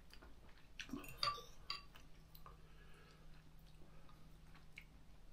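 A few light clinks of a fork against a bowl as noodles are scooped up, bunched about a second in, with a faint steady low hum behind.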